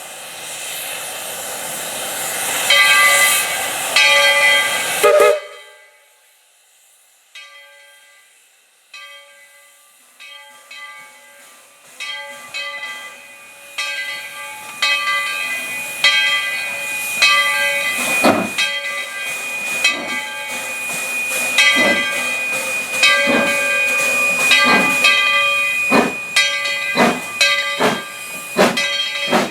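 Baldwin steam locomotive #12, a narrow-gauge 4-6-0, blowing its steam whistle, a loud chord with a hiss that cuts off sharply about five seconds in. After a short lull its exhaust chuffs start, slow at first and then faster and louder as the engine works its train closer.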